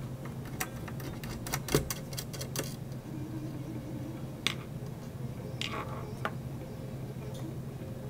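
Quick run of small metallic clicks and ticks as a screwdriver works screws out of a computer's sheet-metal hard-drive cage, followed by a few separate clicks and knocks as the cage is handled. A steady low hum runs underneath.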